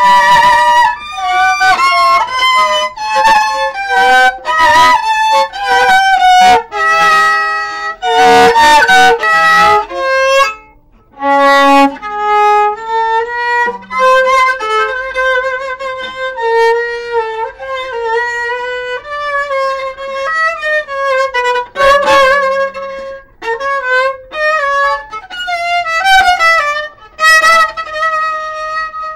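Solo viola played with the bow: an unaccompanied melody line, broken by loud chords about eight to ten seconds in and again around twenty-two seconds, with a short break about eleven seconds in.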